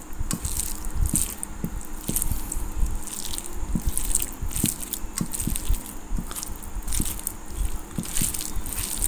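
Close-up wet eating sounds of rice and fish curry eaten by hand from a steel plate: fingers squishing and mixing the rice, and chewing, in an irregular run of soft smacks about twice a second.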